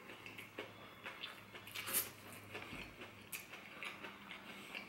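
A person chewing a mouthful of popcorn chicken wrap: faint, irregular crunches and wet mouth clicks, with one louder crunch about two seconds in.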